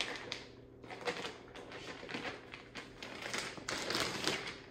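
Clear plastic packaging around a set of sheets crinkling and rustling in irregular bursts as it is handled.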